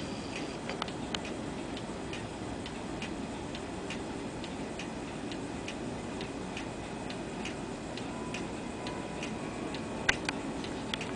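Black Forest church clock's pendulum movement ticking steadily, about two ticks a second, with one louder click about ten seconds in.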